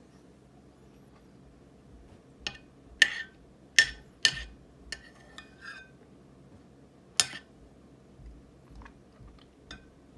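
Metal spoon clinking and scraping against a ceramic bowl. There is a cluster of sharp clinks about two to four seconds in and another clink around seven seconds, with a few lighter ticks after.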